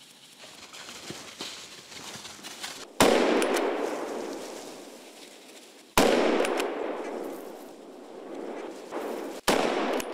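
Three rifle shots, about three seconds apart. Each is a sharp crack that rolls away in a long echo through the woods.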